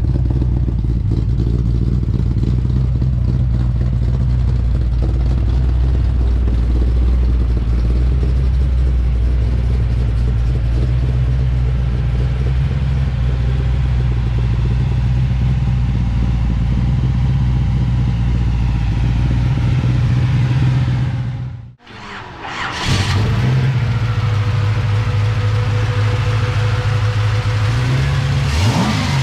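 454 cubic-inch big-block V8 of a 1967 Chevrolet C10 pickup idling steadily with a deep, even note. About three quarters of the way through the sound drops out briefly, then the idle resumes, with a short rise in pitch near the end.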